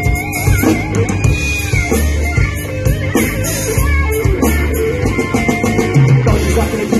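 Rock band playing live: electric guitar and bass over a drum kit keeping a steady beat.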